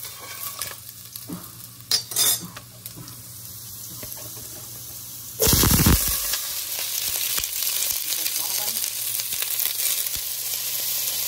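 Garlic frying in oil in a stainless steel pot, with two short knocks about two seconds in. About five seconds in there is a sudden loud burst of sizzling as rinsed green beans go into the hot oil, which settles into a steady sizzle.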